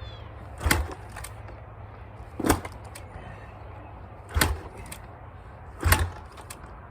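Husaberg FE 450's four-stroke single being kick-started from cold with the choke out: four kicks, each a sudden thump, about one and a half to two seconds apart. The engine does not catch.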